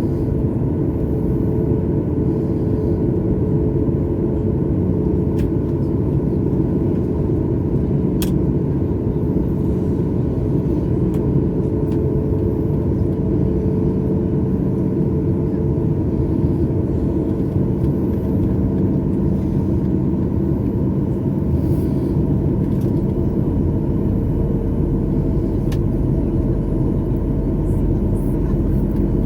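Steady roar of a jet airliner's cabin during descent: engine and airflow noise with a constant low hum running through it.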